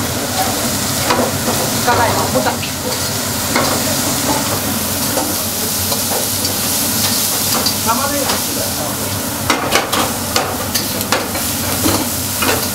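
Sliced vegetables and meat sizzling steadily as they are stir-fried in woks over gas burners. Utensils click against the pans, most in a quick cluster about ten seconds in.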